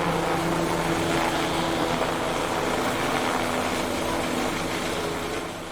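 Helicopter sound effect: steady engine and rotor noise that fades out near the end.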